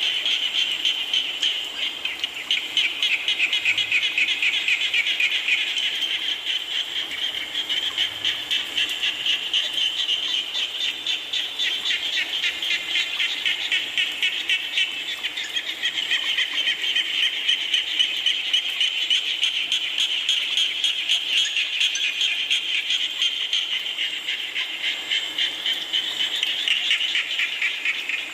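A chorus of frogs calling without pause, many fast pulsing trills overlapping, with rain falling underneath.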